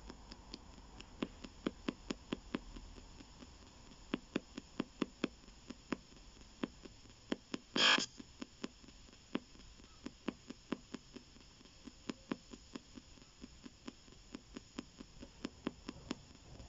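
PSB7 spirit box scanning the AM band, heard through a small external speaker: faint static and hum broken by a run of sharp clicks at irregular spacing, a few a second, as it hops between stations. There is one short, louder burst of radio sound about eight seconds in.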